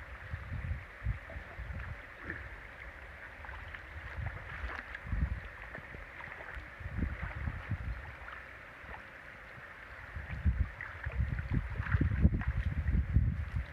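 Water trickling and dripping off a large square lift net as it is hauled up out of a pond, with irregular low thumps and rumble that grow busier near the end.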